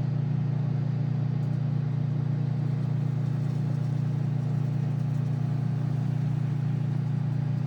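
Microwave oven running: a steady mains-frequency hum that holds the same pitch and level throughout.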